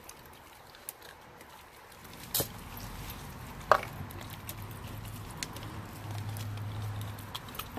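Renascence Bulldogge puppy chewing and crunching a raw fish, with a few sharp cracks, the loudest about three and a half seconds in. A low steady hum sets in about two seconds in.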